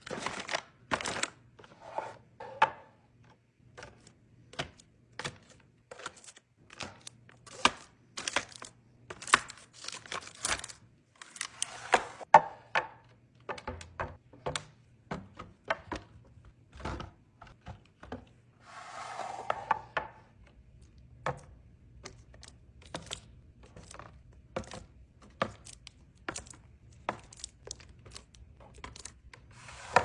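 Packaged snacks and apples being set one by one into a clear plastic organizer bin: a run of irregular taps and clicks of items knocking against the plastic. Short bursts of packaging rustle come about 12 and 19 seconds in.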